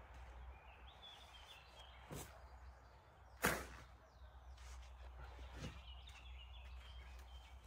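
Shovel strokes in loose earth: three short scraping swishes, the loudest about three and a half seconds in, over a low steady hum, with small birds chirping faintly.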